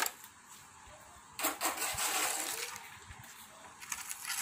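Long-handled hoe scraping wet cow dung across a cement floor: one rasping stroke about a second and a half in, and another starting near the end.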